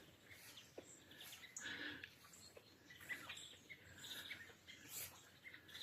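Faint chorus of many small birds calling and singing, a scatter of short chirps and trills from several birds at once.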